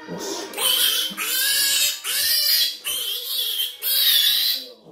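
A piglet squealing loudly while being picked up and held, about five long shrill squeals in quick succession.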